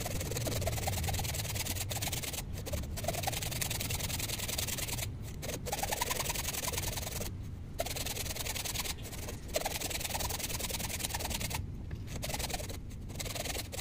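A hacksaw blade drawn back and forth by hand inside the throat of a wooden hand-plane body, rasping against the wood in repeated strokes with short pauses. It is trimming the sides of the wedge slot so the wedge seats properly.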